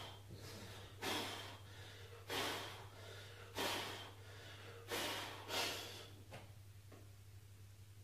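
A weightlifter's short, forceful breaths, about five of them a second or so apart, as he braces with a loaded barbell racked on his shoulders before the jerk. A faint low hum runs underneath.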